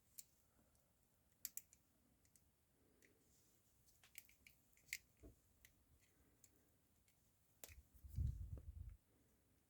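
Faint, scattered clicks of a bent paper-clip pick working inside a rigid handcuff's keyhole, feeling for the split pawl to release the lock. A short low rumble comes about eight seconds in.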